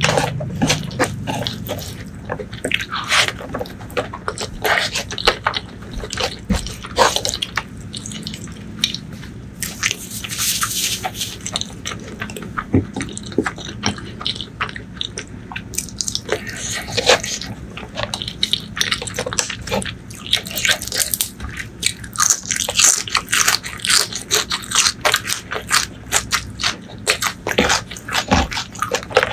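Close-miked eating by hand: wet chewing and lip smacks, with the squish of curry-soaked rice being pressed together in the fingers.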